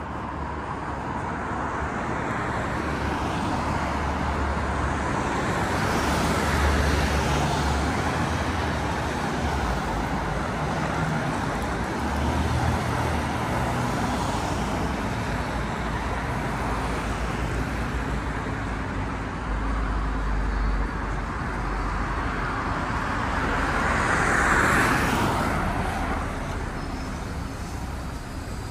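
Street traffic on a busy city avenue: a steady flow of cars passing, with low engine and tyre rumble. Louder passes swell up about six seconds in and again shortly before the end, the later one the loudest and closest.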